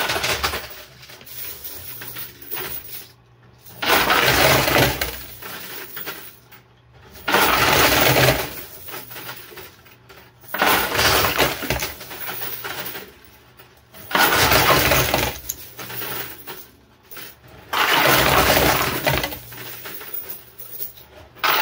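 A coin pusher's coins and chips clattering as they spill off the pusher shelf, in about six loud bursts roughly every three and a half seconds, with quieter rattling between them.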